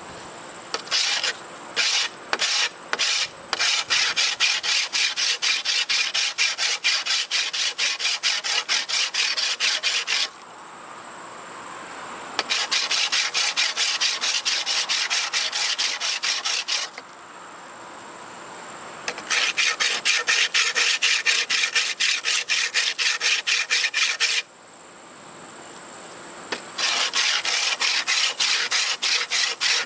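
A coarse 200-grit diamond sharpening block rubbed rapidly back and forth on the edge of a rusty, dull steel lawnmower blade. The strokes come in four quick runs with short pauses between them.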